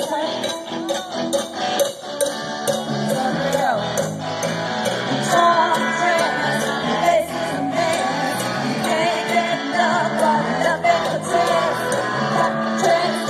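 Live rock band playing loudly: drums keeping a steady beat under guitars and bass, with a singing voice.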